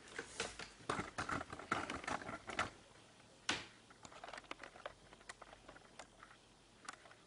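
Drawing instruments being handled on a drawing board: a quick run of small clicks, taps and light scrapes over the first three seconds, one sharper knock about three and a half seconds in, then a few sparser ticks.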